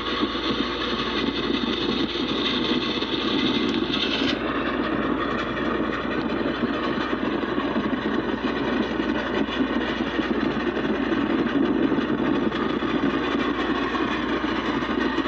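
Steady running noise of a passenger train hauled by Chesapeake and Ohio J3a 4-8-4 steam locomotive No. 614, with no distinct exhaust beats. It is played back from a television, and a higher hiss drops away about four seconds in.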